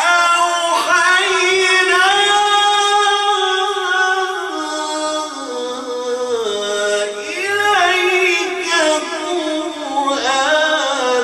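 A man's voice reciting the Quran in the melodic style, drawing out long ornamented notes that glide up and down. One phrase trails off about six seconds in and a new one begins.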